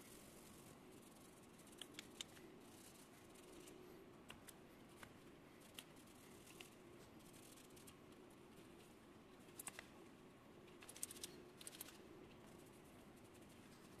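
Faint handling sounds as gloved hands buff a small aluminum part with a cloth: light rubbing and scattered small clicks, a cluster of them about ten to twelve seconds in, over a faint low hum.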